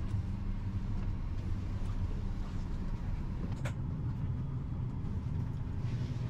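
Steady low hum inside a parked Boeing 737-800 cabin during boarding, with one short sharp click about three and a half seconds in.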